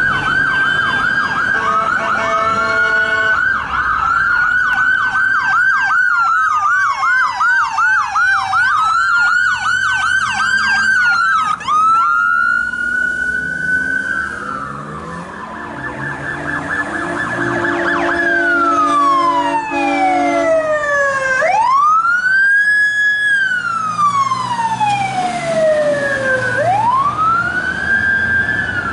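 Electronic sirens of an ambulance and a fire department paramedic squad running code, switching between a fast yelp and a slow rising-and-falling wail, with two sirens overlapping at times. About midway there are a few seconds of a steady low tone.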